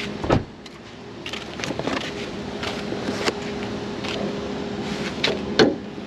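A heavy thump just after the start, then a steady low hum with a few light clicks, and a sharp clack near the end as the Hyundai Ioniq 5's hood latch is released and the hood is lifted.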